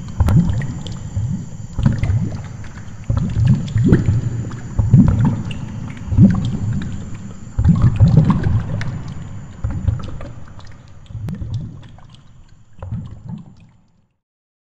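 Underwater camera audio: water surging against the camera housing in low, uneven rumbling pulses every second or two, with faint scattered clicks. It fades out near the end.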